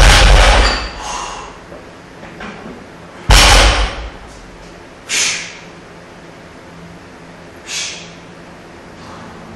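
Barbell loaded with rubber bumper plates bouncing and settling on the floor after being dropped from overhead, then another heavy thud about three seconds in and two lighter knocks later.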